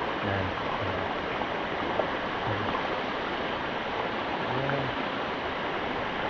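Stream water flowing out of a cave, with a steady watery rush.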